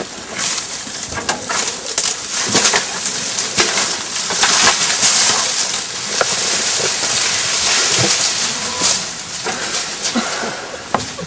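African elephant breaking branches and stripping foliage: many sharp snaps and crackles over a rustle of leaves, busiest in the middle.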